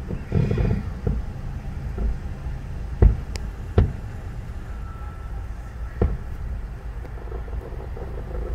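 Fireworks bursting in the distance: three sharp reports, about three seconds in, just under four seconds in, and about six seconds in. Under them is a steady low rumble of traffic and engines, heard from inside a car.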